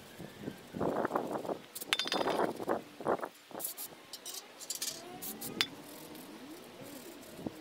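Steel-backed brake pads clinking and knocking against a metal drain pan as they are wiped clean with a rag, with a brief metallic ring about two seconds in. A few short hisses of brake parts cleaner spray follow.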